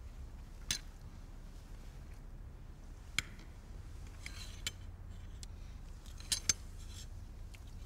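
Cutlery clinking and scraping on plates as a dessert is tasted: a handful of short, light clinks spread a second or more apart over a low room hum.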